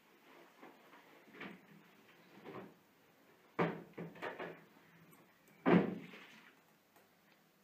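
Refrigerator door pulled open with a sudden thud, a few light knocks as a small bottle is taken from the door shelf, then the door shut with a louder thud.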